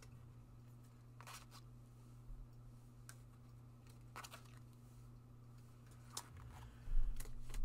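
Trading cards being handled and sorted: faint rustles and soft clicks every second or so, then a louder thump near the end, over a low steady hum.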